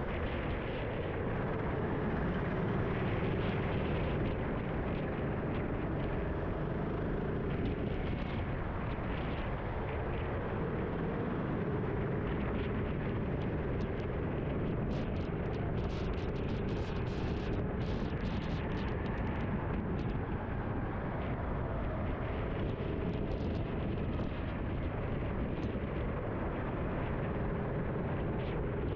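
Endurance rental kart's engine running at racing speed, its pitch rising and falling through the corners, under a heavy rumble of wind and road noise on the onboard microphone on a wet track. Sharp crackles cluster in the middle.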